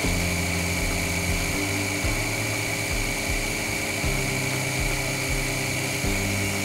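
A lathe running while a cutting tool turns a point on a small silver steel part, with a steady high whine throughout. Background music with low held notes plays underneath.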